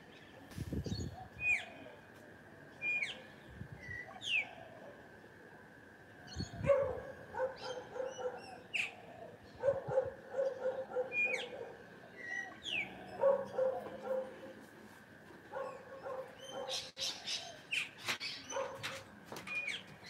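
Birds chirping with short, sharp calls every second or two, while a dog barks in four short runs of several barks each.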